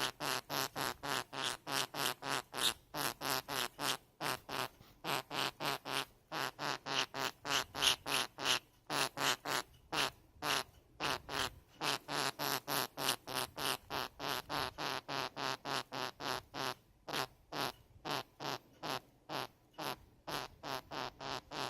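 Budgerigar repeating one short call over and over, about three times a second, with a few short breaks, the strange noise the bird keeps making.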